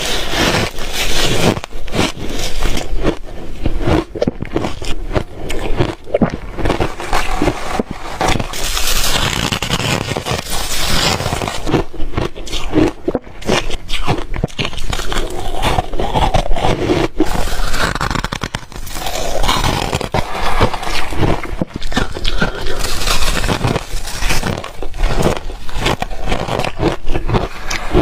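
Reshaved refrigerator ice being bitten and chewed close to the microphone: continuous, irregular loud crunching and scraping of the ice grains.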